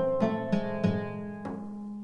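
Oud plucking a slow melody in makam segâh, a few notes in quick succession and then one note ringing out for about a second.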